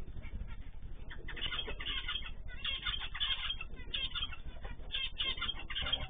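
Mixed aviary of small finches and canaries chirping, many quick calls overlapping. Heard through a security camera's microphone that cuts off everything above the middle of their calls, with a steady low hum underneath.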